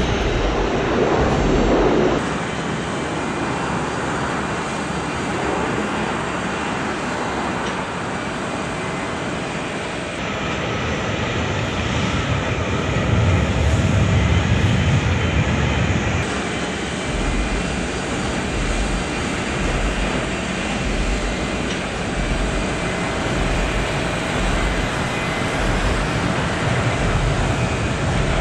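Steady jet aircraft engine noise across an airport apron, with a deeper, louder swell about halfway through.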